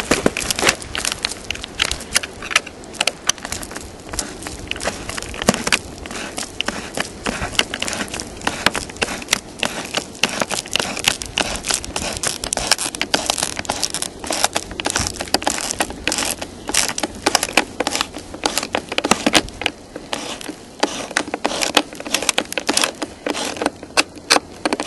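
Plastic vapor-barrier jacket of an insulated flexible air duct crinkling and crackling as it is handled and fitted, a dense, irregular run of small crackles and clicks.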